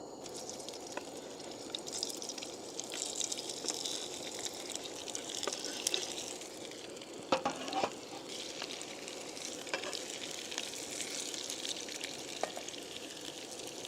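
Boiled potatoes sizzling steadily as they fry in hot oil, with scattered clicks of a utensil stirring them. A brief pitched sound stands out about seven seconds in.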